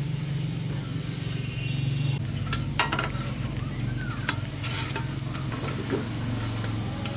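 Cooking at a pot: a metal utensil stirring, scraping and clicking against it, starting about two and a half seconds in, with a light sizzle, over a steady low hum.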